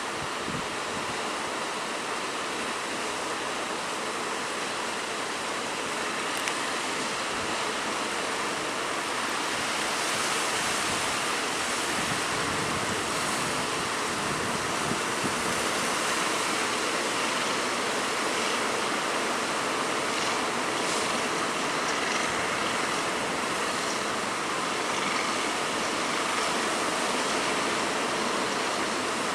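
Rough sea in bad weather: waves and churning water making a steady rushing hiss, mixed with wind, getting slightly louder about a third of the way in.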